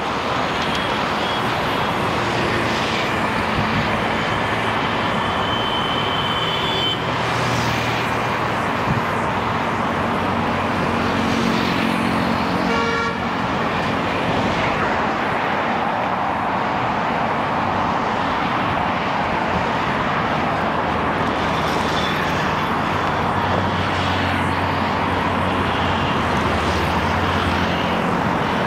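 Busy road traffic heard from among it: a steady rush of road noise with vehicle engines passing. Car horns honk now and then, with a run of rapid short toots about halfway through.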